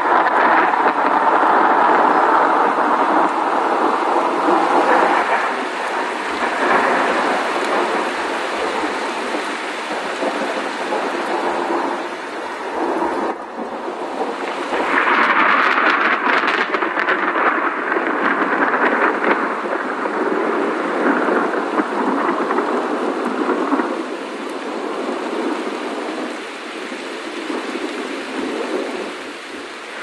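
Thunderstorm: continuous rain with thunder. About 13 seconds in the sound dips briefly, then a loud thunderclap breaks in and rolls on for a couple of seconds. The storm is a little quieter over the last few seconds.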